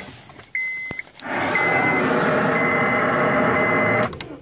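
Car warning chime beeping about once a second, and from about a second in the Honda Civic's 1.8-litre four-cylinder engine being cranked on its starter for about three seconds before the cranking stops sharply.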